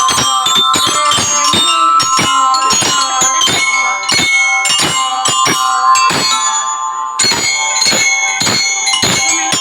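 Children's drum band playing: bellyra (lyre-shaped glockenspiel) notes ringing out a melody over a steady run of drum strikes, just after a count-in.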